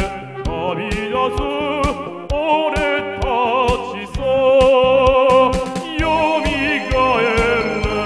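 Man singing into a karaoke microphone with a wide vibrato over the song's backing track, drum beats keeping a steady rhythm.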